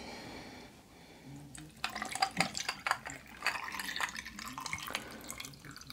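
Cold brew coffee being poured from a cafetière into a glass of ice cubes. The liquid splashes and trickles over the ice with scattered irregular clicks, starting about two seconds in.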